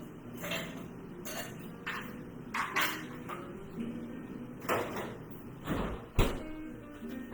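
A series of irregular knocks and clatters of hard objects being handled and set down, about eight in all, the sharpest about six seconds in, over faint background guitar music.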